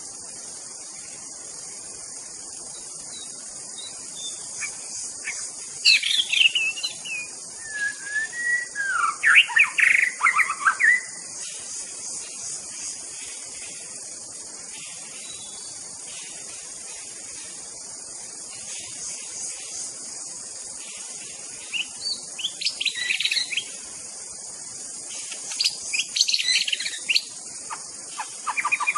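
White-rumped shama (murai batu) singing in separate phrases of varied whistles and rapid trills, the first and longest about six seconds in. Under it runs a steady high insect drone.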